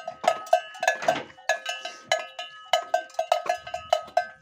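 Metal bell on a cow's neck chain clanking irregularly, about four strikes a second, each ringing briefly, as the cow swings her head licking her newborn calf.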